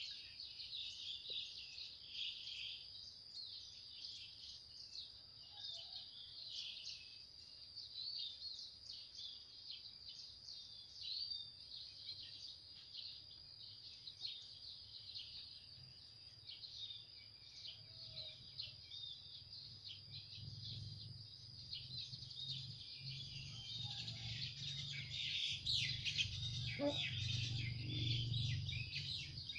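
Many small birds chirping and twittering in a dense, continuous chorus over a steady high-pitched whine. A low rumble builds up in the last ten seconds.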